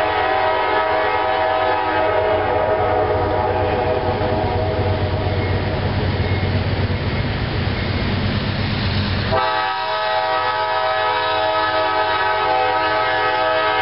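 A CSX diesel freight locomotive's horn sounding a held chord as the train approaches, fading after a few seconds into a steady rumbling noise, then blowing again abruptly about nine seconds in and held to the end.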